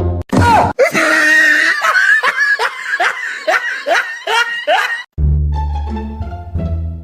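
A person laughing hard, a quick run of high 'ha' sounds that each fall in pitch, about three a second. It breaks off about five seconds in, and plucked string background music comes back in.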